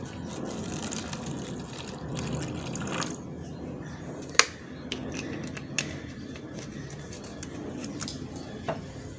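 Liquid bacterial culture poured from a plastic bottle into a clear plastic cup, splashing and filling for about three seconds before the pour stops. A few sharp clicks follow, one loud one about four and a half seconds in.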